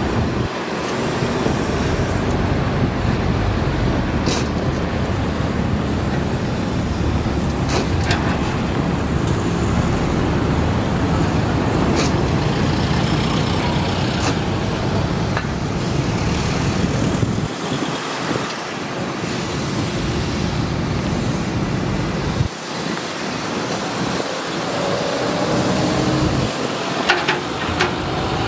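Matador ME210LC-1 excavator's diesel engine and hydraulics running steadily as it digs soil out of a trench, with a few sharp knocks scattered through. The low engine rumble drops away briefly a few times in the second half.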